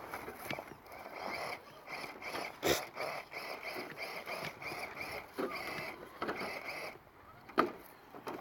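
RC rock crawler's electric motor and gear drive whining in short throttle bursts, with sharp knocks of the truck against rock; the loudest knocks come about a third of the way in and near the end.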